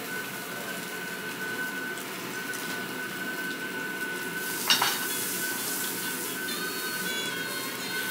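Slices of thick-cut beef tongue sizzling on a yakiniku tabletop grill: a steady hiss with a thin high tone running under it. A little over halfway through, metal tongs clink once as another slice is set on the grill mesh, and the sizzle gets brighter after that.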